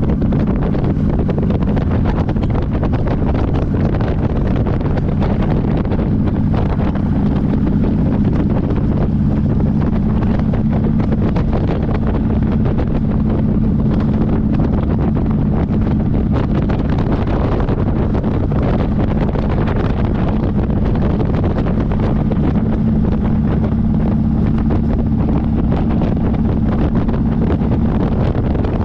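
Motorcycle engine running steadily while riding, its low note holding a fairly even pitch, under heavy wind noise on the onboard microphone.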